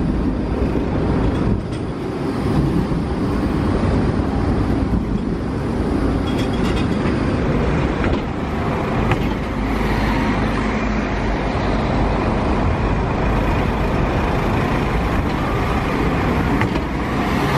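A Stadler Tango tram rolls past, then Mercedes-Benz Citaro articulated buses pass close by. The bus engines and tyres run steadily through the second half.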